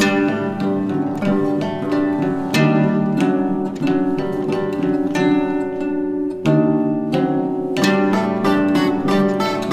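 Plucked string instruments playing an instrumental melody, a quick run of ringing plucked notes over a steady low tone.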